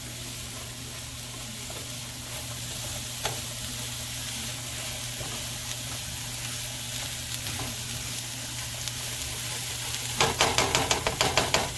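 Diced mushrooms, red bell peppers and onions sizzling in butter and olive oil in a nonstick frying pan, stirred with a silicone spatula. Near the end comes a quick run of spatula strokes against the pan, about ten a second.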